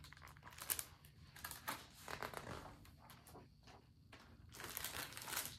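Faint rustling and light clicks of a picture book being handled, its pages turned.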